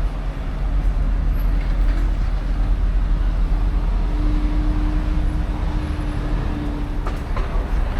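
A motor vehicle's engine running in street traffic: a steady low rumble with a hum that rises slightly about halfway through.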